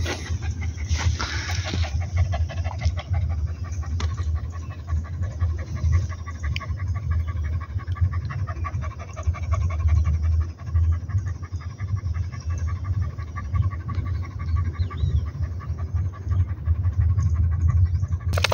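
Shaggy, wire-haired dog panting rapidly and steadily with its tongue out, over a steady low rumble.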